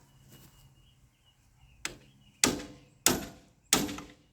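Hammer blows on metal: a light tap, then three hard strikes at an even pace in the second half, each with a brief metallic ring.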